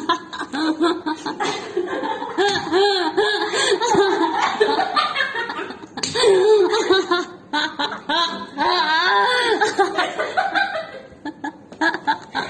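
People laughing hard, bout after bout of high, rising-and-falling laughter, easing off near the end.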